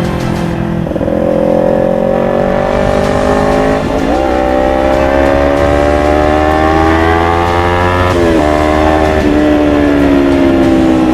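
Kawasaki Ninja 250 FI's parallel-twin engine through a full-system Akrapovic GP exhaust, accelerating hard. The pitch climbs, dips with a gear change about four seconds in and climbs again, breaks around eight seconds in, then falls slowly as the bike slows.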